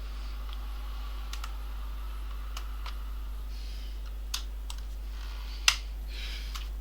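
Metal spudger prying at a laptop keyboard's plastic retaining clips: scattered small clicks and light scraping as the keyboard is worked loose, with one sharper click near the end.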